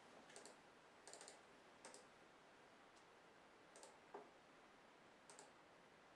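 Faint computer mouse clicks, a handful of scattered single and double clicks over quiet room tone.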